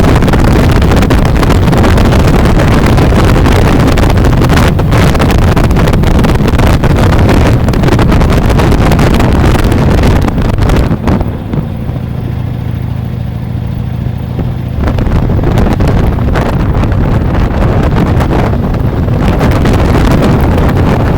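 Heavy wind buffeting on the microphone while riding. About halfway through it eases for a few seconds and a steady low hum comes through, then the wind noise returns.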